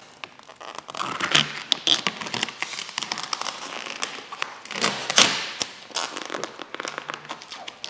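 Vinyl wrap film crinkling and crackling as it is handled and smoothed onto a car's trunk lid, with many small crackles and two louder rustling swishes, about a second and a half in and about five seconds in.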